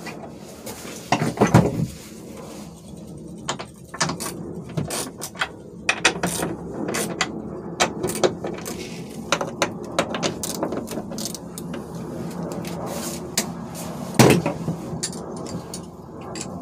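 Hand ratchet with a 10 mm deep socket clicking in quick irregular runs as it backs out the bolts holding the sunroof assembly to the roof. There is a louder knock about a second and a half in and another near the end.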